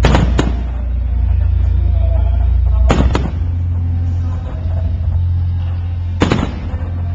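Aerial firework shells bursting with sharp bangs: two close together at the start, another about three seconds in and another about six seconds in, over a steady low rumble.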